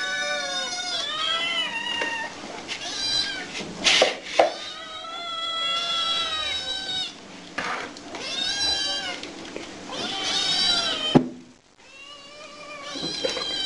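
Several hungry kittens meowing over one another in high, arching calls with hardly a break, begging to be fed. A sharp click about eleven seconds in is followed by a brief lull before the meowing starts again.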